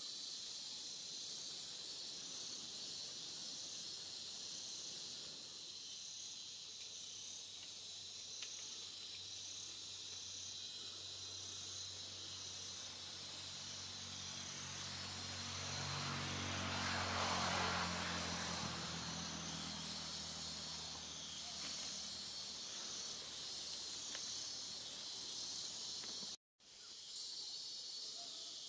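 Steady high-pitched hiss of insects with a faint, even pulsing. In the middle a low hum swells up and fades away again, and near the end the sound cuts out for a moment.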